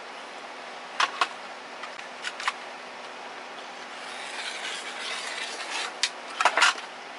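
Clear acrylic quilting ruler being shifted and pressed into place on a quilt block on a cutting mat: a few light clicks and taps, pairs about a second and two and a half seconds in, with a soft sliding rub in between, and a closer cluster of clicks near the end.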